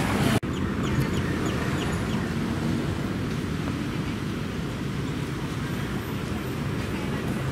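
Steady outdoor ambience: a low hum of distant traffic with a few faint bird chirps, cutting in abruptly from wind and surf noise about half a second in.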